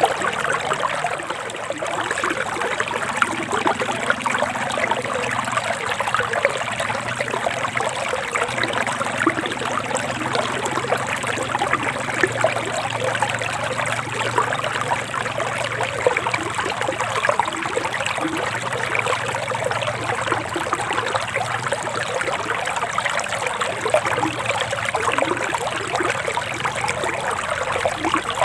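Forest stream flowing and trickling steadily over rocks, a dense, even babble of water.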